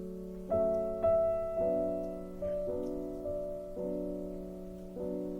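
Background piano music: slow, gentle chords struck about once a second, each ringing and fading.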